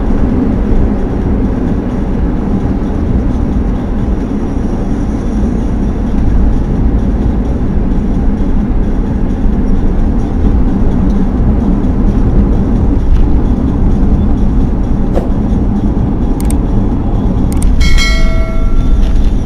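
Steady low rumble of road and tyre noise from a car driving along a motorway at speed. Near the end come a few sharp clicks and a short bell-like chime: the sound effect of an on-screen subscribe-button animation.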